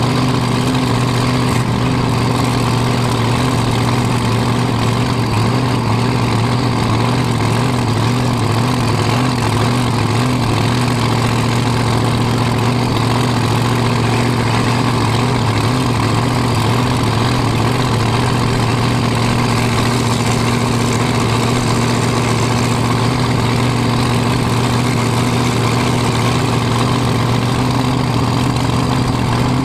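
Dragster's engine idling steadily and loudly close to the microphone while the car waits, its note wavering slightly in the first few seconds and then settling.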